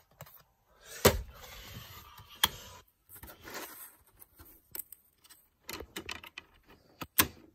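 Clicks and light rattling of a DVD being handled and snapped into its plastic case, with a sharp click about a second in and scattered smaller clicks after it.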